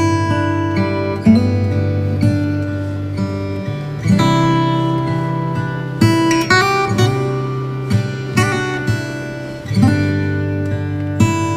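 Background music: acoustic guitar, strummed and plucked chords ringing out, a new chord every second or two.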